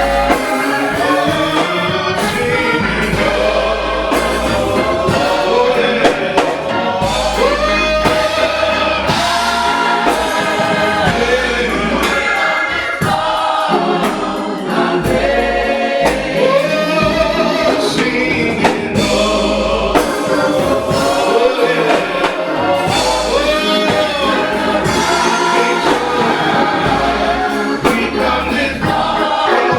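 Gospel choir singing over backing music with a steady bass.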